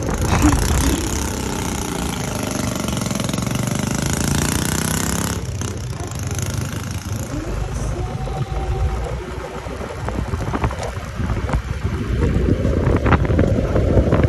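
Yamaha motor scooter riding slowly along a road: engine and road rumble with a loud rushing of air that cuts off about five seconds in as the scooter slows.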